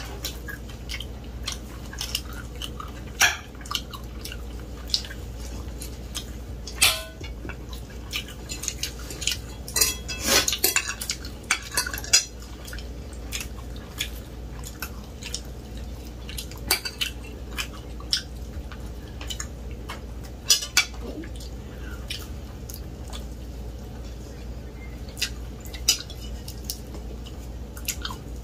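People eating from plates: irregular clinks and taps of a fork and fingers against plates, with a denser run of louder clicks about ten seconds in.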